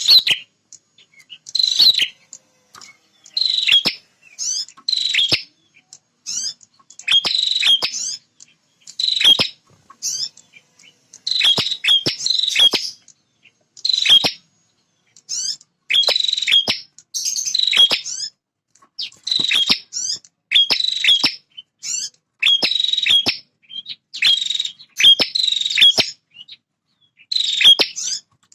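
Male prinia (prenjak) singing loudly: short, rapid, shrill chattering phrases with sharp snapping notes, repeated every second or two with brief pauses between. This is a territorial song of the kind used as a lure to provoke rival prinias.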